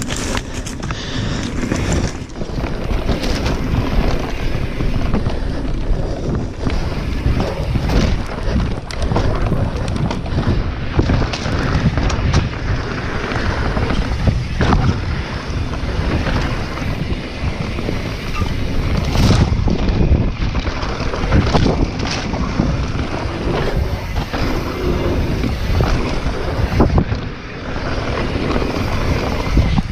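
Wind buffeting the action camera's microphone while a mountain bike descends a rough dirt trail at speed, tyres rolling and skidding on loose dirt and the bike clattering over bumps and rocks, with frequent sharp knocks throughout.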